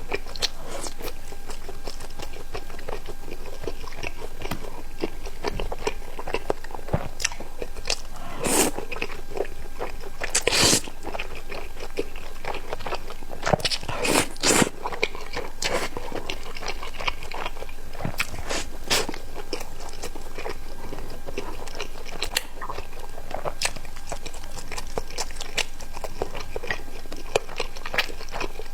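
A person biting and chewing crunchy food: a dense run of crisp crunches, with the loudest bites about eight and a half, ten and a half and fourteen seconds in.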